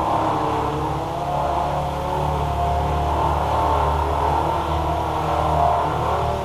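An engine running continuously, its pitch repeatedly rising and falling as it speeds up and slows down.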